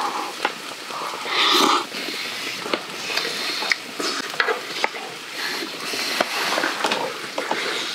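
Lamb, onions and bean sprouts sizzling in a jingisukan grill pan, with frequent light clicks of tongs and chopsticks on metal. A couple of short breathy sounds come in the first two seconds.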